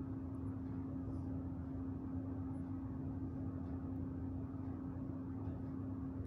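Steady low hum with one constant tone over a light rumble, unchanging throughout, with a few faint ticks now and then.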